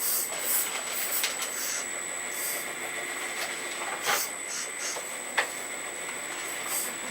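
Earth Digger 4200XL RC hydraulic excavator running, its hydraulic pump giving a steady high whine broken by short hisses, with two sharp clicks about four and five and a half seconds in.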